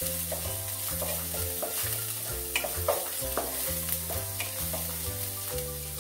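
Ginger-garlic paste sizzling in foaming butter in a frying pan, with a wooden spatula stirring and scraping it around the pan. Background music with a low bass line plays along with it.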